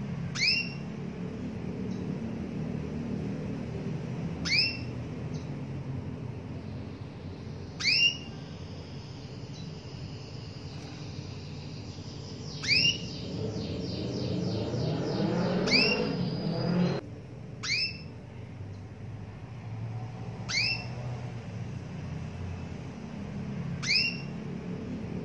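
Female canary giving single short, rising contact calls, eight in all, about every three to four seconds, with a brief rapid trill around the middle. These are female calls of the kind used to prompt a silent male canary to start singing. A low background hum swells and cuts off suddenly about two-thirds of the way through.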